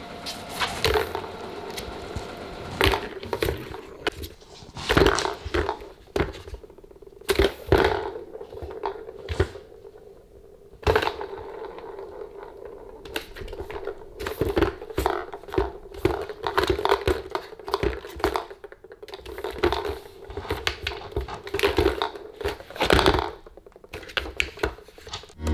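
Plastic balls rolling around the tracks of a three-tier plastic ball-track cat toy as a cat bats at them, with many irregular knocks and clicks of ball on plastic. It goes quieter for a moment around ten seconds in.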